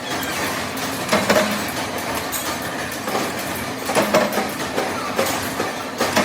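Factory machinery running with a steady rattling clatter, broken by three louder knocks about three seconds apart.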